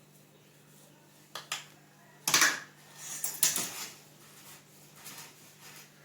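Hard objects knocking and clattering as they are handled: two light knocks, then a loud clatter a little past two seconds in and a longer run of clatters just after.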